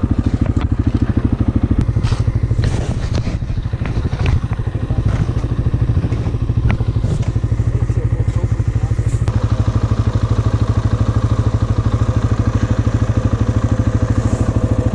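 ATV engine running steadily with a fast, even pulse, with a few knocks and clatters in the first seconds; about nine seconds in a higher whine joins as the engine takes more load.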